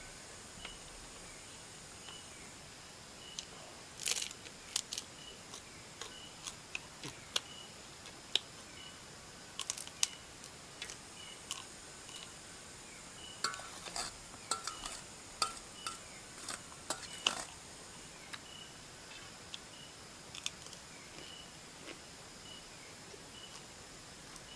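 Scattered clicks, knocks and light clinks of kitchen utensils against cookware, busiest in the middle. A faint, evenly repeating high chirp of insects runs underneath.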